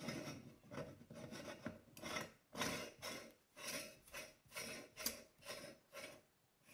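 The tin-plated cast-iron clamping screw of a No. 22 hand meat mincer being turned on by hand, its metal threads scraping in short repeated strokes, about two a second.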